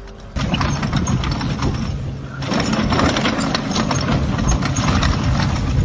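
Heavy construction machine's engine running steadily, with a low hum. A harsher clattering noise joins about two and a half seconds in.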